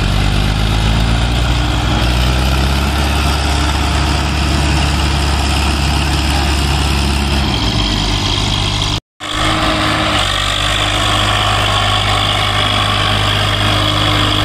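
Diesel tractor engines working hard in deep mud. First the Mahindra Arjun's engine is held at high revs and eases down about eight seconds in. After a brief cut, the Swaraj 744's engine runs steadily under load.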